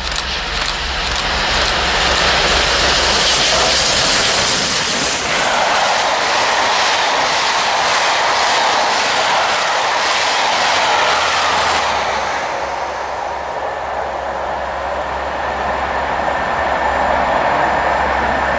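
LNER Peppercorn A1 Pacific 60163 Tornado, a three-cylinder steam locomotive, passing at about 90 mph. Its exhaust beats come in quick succession as it approaches. It then gives way to the rush and clatter of the coaches' wheels, which fades and dulls from about twelve seconds in as the train recedes.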